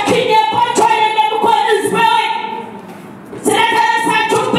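Women's voices singing a worship song in held, sustained notes. The singing fades out a little past two seconds in and comes back in strongly about a second later.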